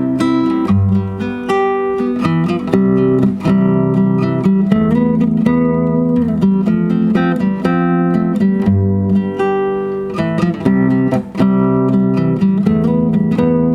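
Solo acoustic guitar played fingerstyle: a plucked melody over bass notes, in steady, continuous playing.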